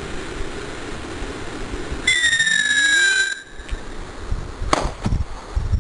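A steady rushing noise, then a loud whistle that falls slightly in pitch for about a second and a half, followed about a second later by a sharp crack with low rumbling: a missile sound effect, its flight and its impact.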